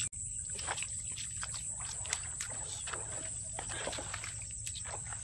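Marsh chorus of frogs calling in many short, rapid croaks, over a steady high-pitched insect whine.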